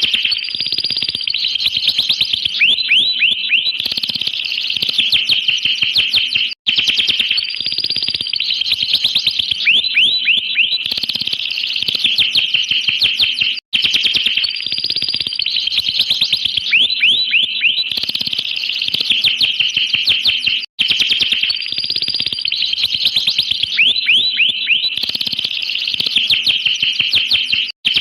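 Domestic canary singing: fast rolling trills and quick falling whistles. The same song passage repeats about every seven seconds, each time after a brief cut.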